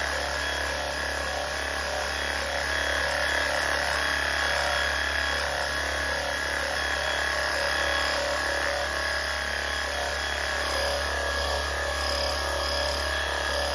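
Battery-powered WORX Hydroshot portable pressure cleaner running with a steady whine as its wand sprays a fine mist of cleaning solution onto carpet.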